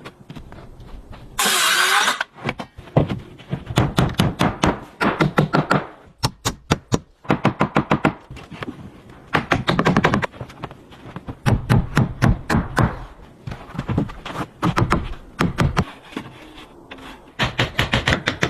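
Rapid series of sharp knocks and strikes in bursts, several a second, from hand-tool work on wood, with a short rushing noise about a second and a half in.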